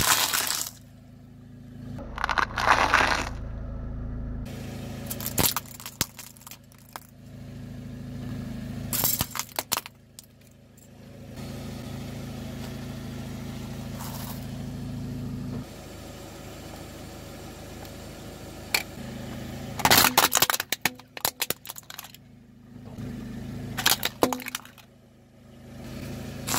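A car tyre slowly rolls over and crushes brittle snacks such as wafer ice-cream cones. There are about six separate bursts of crackling and crunching, over the steady low running of the car's engine.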